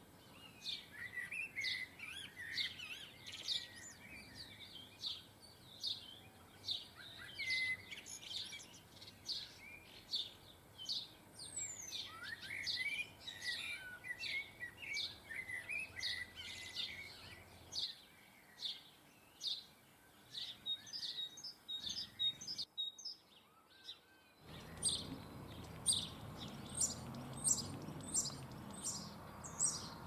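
Small garden songbirds chirping and singing, a busy mix of short high chirps and warbled phrases. About three-quarters of the way through there is a short drop to near silence. After it, a run of repeated chirps about two a second over a steady background hiss.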